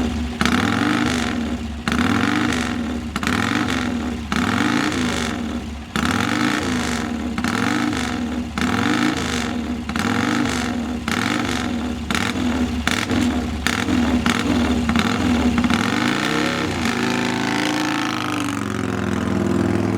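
Vincent HRD Black Lightning's 998 cc V-twin running and being blipped, revs rising and falling about once a second. It then settles into a steadier, lower run for the last few seconds.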